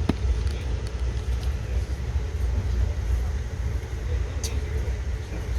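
Steady low rumble of an Amtrak passenger train heard from aboard a coach as it arrives at a station, with a couple of sharp clicks.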